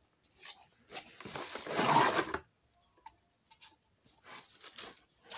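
Rustling and crinkling of items being handled, loudest about two seconds in, followed by a few lighter clicks and rustles.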